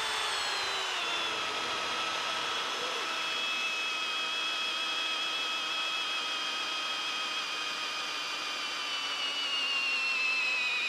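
RIDGID cordless hammer drill in drill mode at low speed, boring a large auger bit into a log: a steady motor and gearbox whine that starts suddenly and slowly drops in pitch as the bit goes deeper and the load builds, wavering near the end as the drill begins to bog down.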